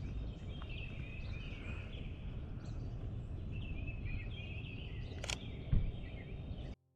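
Small birds chirping in short repeated calls over a steady low rumble. A sharp click a little past five seconds in and a thump just after, then the sound cuts off near the end.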